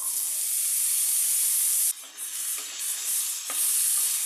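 Boiled black chickpeas sizzling in hot mustard oil and cumin seeds in a non-stick kadhai as they are poured in. The sizzle drops suddenly about two seconds in, then rises and falls in waves as a wooden spatula stirs the chickpeas.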